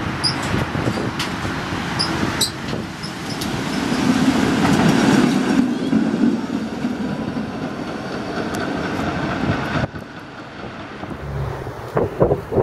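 PCC streetcar pulling away and rolling past, a steady rumble of motors and steel wheels on rails. It is loudest as the car goes by and cuts off abruptly about ten seconds in.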